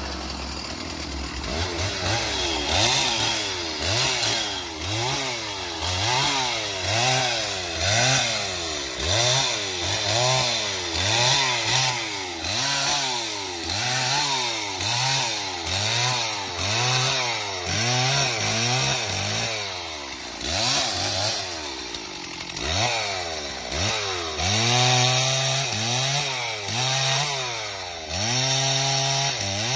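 Stihl two-stroke chainsaw cutting through the limbs of a fallen tree, its revs rising and falling about once a second as the throttle is pulsed. Near the end it holds a few longer, steadier runs at high revs.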